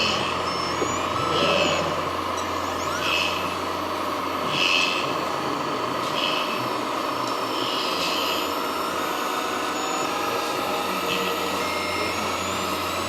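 Radio-controlled model construction machines running: a steady whine of electric motors and hydraulics. Over it, a short higher-pitched sound repeats about every one and a half seconds.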